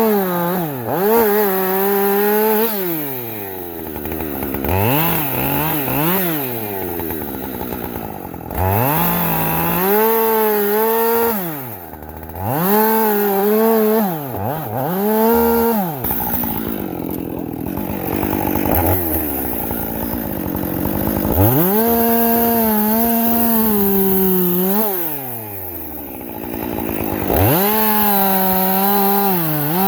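Two-stroke Husqvarna chainsaw cutting acacia wood. It is revved repeatedly to a high steady pitch for a few seconds at a time, with the engine dropping back toward idle between cuts.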